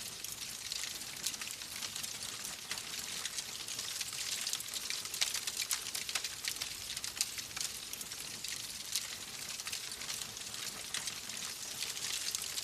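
Wood fire crackling: a steady hiss dotted with many small, quick pops.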